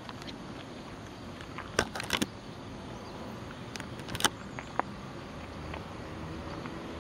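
Steady outdoor background noise with a cluster of sharp clicks and knocks about two seconds in and a few more around four seconds in, from a handheld camera being moved.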